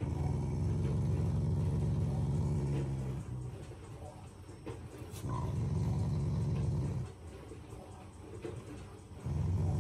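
Black Shiba Inu growling in three long, low rumbling growls, the second starting about five seconds in and the third near the end. It is a play growl at the owner's hand, not anger.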